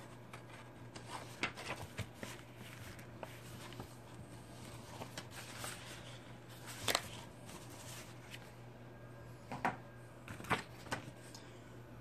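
Paper instruction manual and plastic packaging being handled in a cardboard box: soft rustles and scattered light clicks, the sharpest about seven seconds in, over a faint steady low hum.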